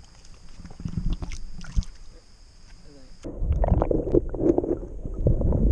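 Creek water splashing softly as hands move a trout in the shallows, then, about three seconds in, a louder muffled churning and knocking of moving water heard from a microphone dipped under the surface.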